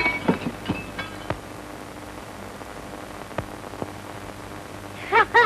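Hiss and crackle of an old optical film soundtrack, with a few scattered clicks and a faint steady hum. A child's voice starts near the end.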